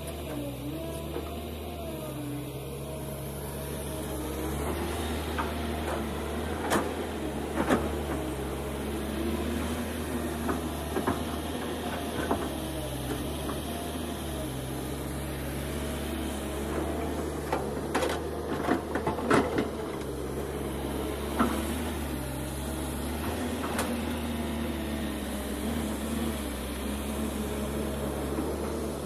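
Kobelco SK210LC hydraulic excavator's diesel engine running steadily, its pitch stepping up and down as the hydraulics take load while the bucket digs and lifts soil. Scattered sharp knocks from the bucket and clods of earth and stone.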